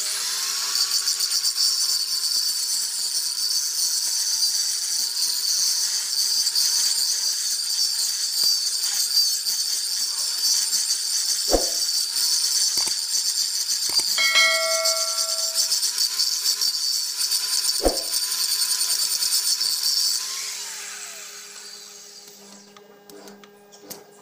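Electric angle grinder running and grinding on the cast iron rear axle housing of a tractor. It starts abruptly with a steady high hiss and motor whine, then is switched off about 20 seconds in, its whine falling as it spins down.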